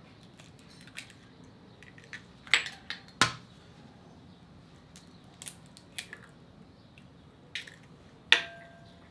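Eggs cracked against a bowl, with shells and dishes clinking: scattered sharp taps and knocks, the loudest about two and a half and three seconds in and one near the end, where a bowl rings briefly.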